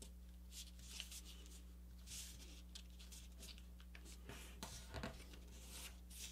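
Faint rustling, sliding and creasing of a paper sheet being folded by hand.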